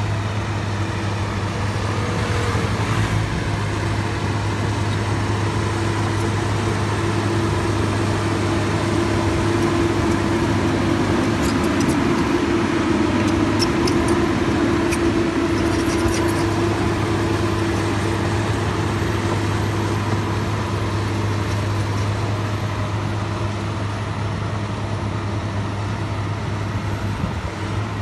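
Heavy diesel engine of earthmoving machinery running steadily, with a deep hum throughout and a higher engine note that swells louder in the middle.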